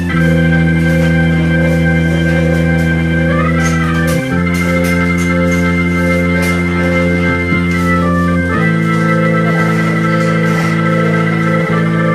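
Background music of long held chords that change to a new chord about every four seconds.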